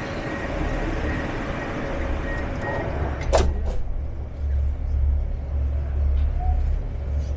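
Moscow Metro train's sliding doors bang shut about three seconds in, after the doors-closing announcement. A low rumble follows and grows as the train starts to move.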